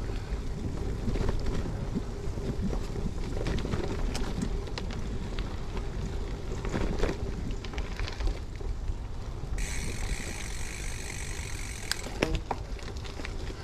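Gravel bike riding over a forest track: steady tyre noise and wind on the microphone, with scattered clicks and rattles. About ten seconds in, a high buzz starts suddenly and lasts about two seconds.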